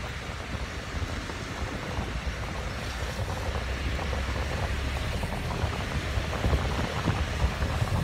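Car rolling along a rain-soaked, flooded street: a steady hiss of tyres through water with a low rumble underneath, a few louder bumps near the end.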